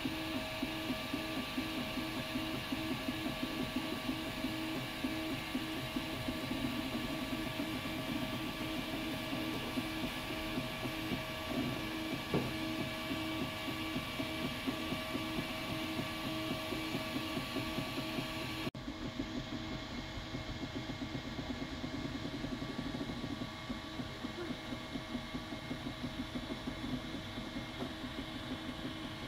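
Ultimaker 3D printer printing: its stepper motors whine in several steady tones under a fast, even pulsing as the print head moves. About two-thirds of the way through, the high hiss drops away abruptly.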